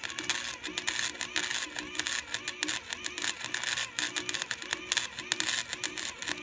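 Electric arc welding crackling steadily as a repair weld is laid on a steel lawn roller, a dense irregular spatter of sharp clicks.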